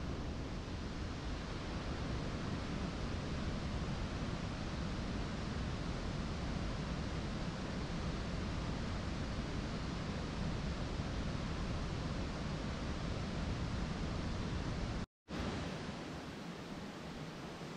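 Steady wind rumble and hiss on an outdoor microphone, with no engine running. About 15 s in the sound cuts out for a moment and then comes back quieter, with less low rumble.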